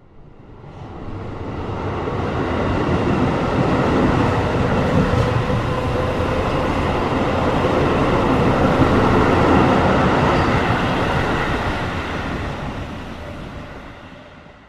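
Train running along the track: a steady noise of wheels and cars on the rails, with faint steady tones in it. It grows louder over the first few seconds, holds, and fades away near the end.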